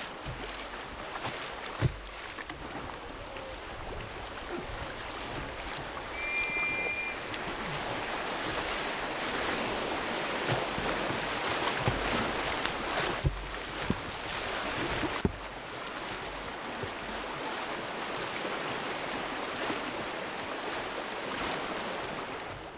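Rushing whitewater around a kayak running a rapid: a steady hiss and rush of moving water, with a few sharp knocks and splashes scattered through it.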